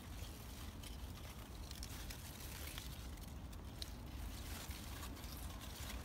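Malabar spinach leaves and vines rustling as they are handled and cut, with a few faint scissor-like clicks over a low steady rumble.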